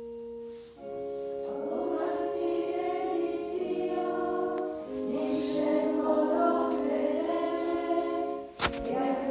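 A small group of nuns singing a hymn together with organ accompaniment. Held organ notes come first, the voices join about a second in and sing on over the sustained chords. A sharp knock near the end.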